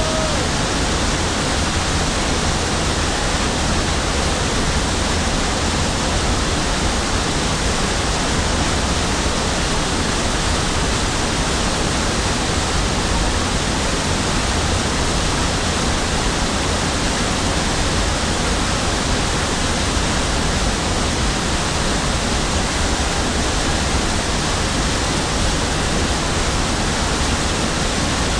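Waterfall pouring over rocks into a pool: a steady, unbroken rush of white water.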